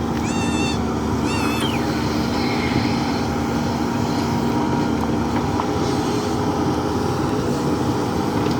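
JCB 3DX backhoe loader's diesel engine running steadily under work. Two short, wavering high-pitched calls sound in the first two seconds.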